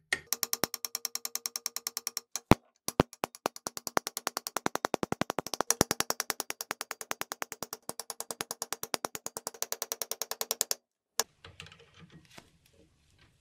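Rapid, evenly spaced hammer taps on a punch, about eight a second, driving the rusty steel pin out of a Raadvad bread slicer's wooden crank handle held in a vise. The tapping stops about 11 seconds in, and a few faint handling clicks follow.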